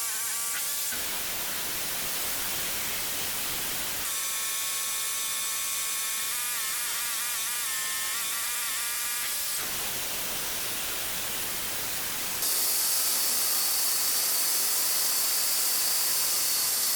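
Portable band sawmill running and cutting through a pine log: a steady, hissing noise, with a wavering whine in the middle of the stretch.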